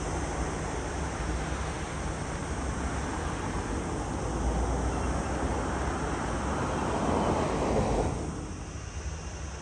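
Jet airliner departing at takeoff power, a broad steady engine rumble as it climbs away, with wind on the microphone. The sound swells toward about eight seconds in, then drops abruptly.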